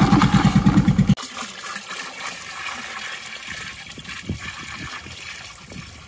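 An engine running with a steady, rapid beat stops abruptly about a second in. After it, irrigation water runs and trickles.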